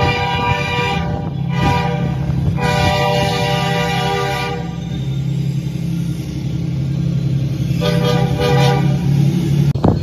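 A CSX diesel locomotive's multi-note air horn sounds a series of blasts: one ending about a second in, a quick short toot, a two-second blast, and a shorter blast near the end. A steady low engine drone runs beneath, and the audio is sped up in playback, which raises the horn's pitch.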